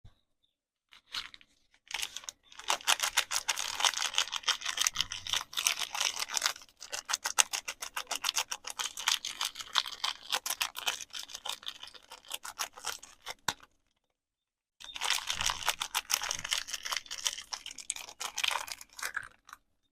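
Crisp soap packaging crinkling and crackling as it is handled and unwrapped, in two long spells of dense rapid crackles with a brief silent pause between them.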